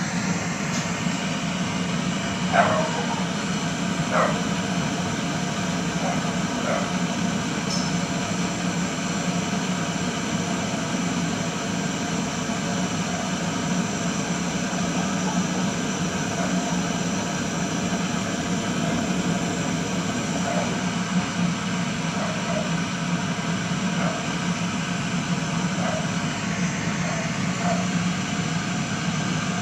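A machine running steadily, a constant motor hum under a broad hiss. A dog yips twice in the first few seconds.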